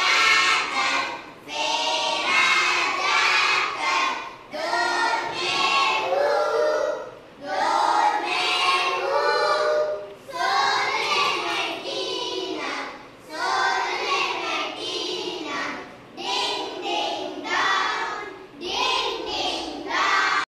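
A class of young children singing a French rhyme together in unison, phrase by phrase with short breaks between lines.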